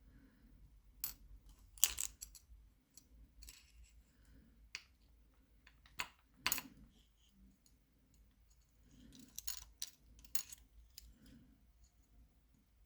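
Scattered small metallic clicks and taps of pin-tumbler lock parts and tools being handled as the lock is taken apart.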